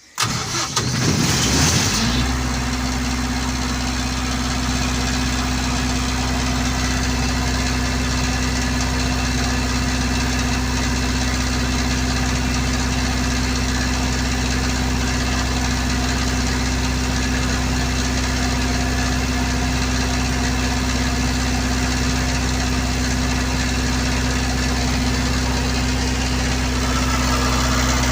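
Generator set engine starting: about two seconds of cranking, then it catches and runs at a steady speed with a constant hum.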